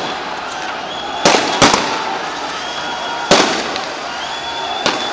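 Gunshots at a distance, four sharp cracks at uneven intervals: two close together about a second and a half in, one just past three seconds and a fainter one near the end. They ring out over a steady background din.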